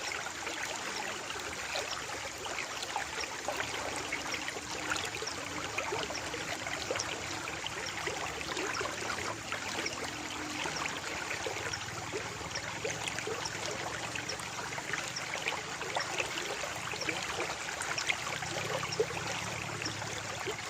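Water trickling and babbling in a small stream: a steady gentle rush dotted with many tiny splashes.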